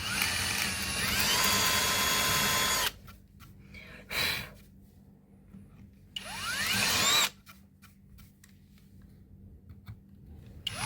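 Electric drill spinning up with a rising whine and boring holes into a charred slice of log, twice: one run of about three seconds, then a short one-second burst about six seconds in that cuts off suddenly.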